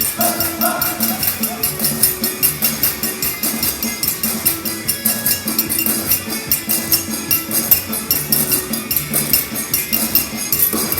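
A percussion ensemble playing: a quick, steady beat of sharp strikes with low held notes underneath.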